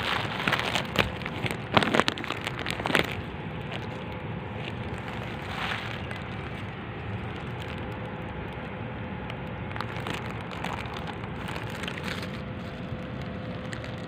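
Several clicks and rustles in the first three seconds, then a steady low background hiss and rumble.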